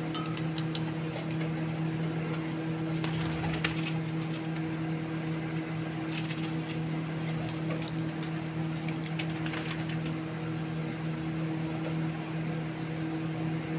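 A steady machine hum with a low pitch, with a few brief crackly clicks about three, six and nine seconds in.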